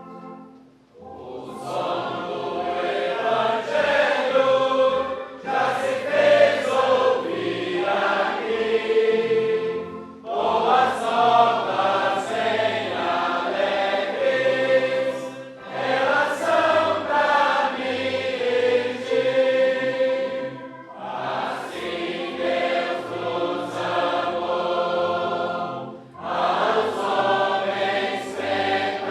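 A choir singing a Portuguese gospel hymn, phrase by phrase, with short breaks between phrases about every five seconds.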